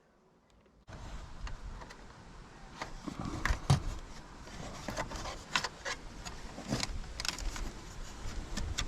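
Handling noises while work is done on the van's cabling and trim: irregular clicks and knocks over a steady background hiss, beginning suddenly about a second in.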